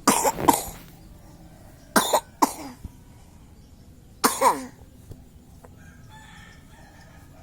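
Wet, phlegmy coughing in three bouts: two coughs at the very start, two more about two seconds in, and a last rasping cough about four seconds in.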